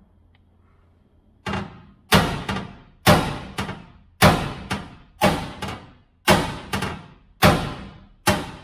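Hammer blows on the steel chassis rail of an OBS Chevy pickup, about two strikes a second each with a short ring, starting about a second and a half in: the torch-heated frame being hammered to take a bulge out of it.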